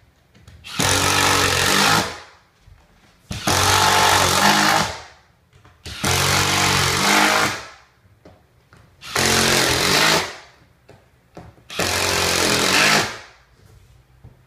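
Cordless power driver sinking screws into backer board over a wood subfloor: five runs of about a second and a half each, with short pauses as it moves to the next screw.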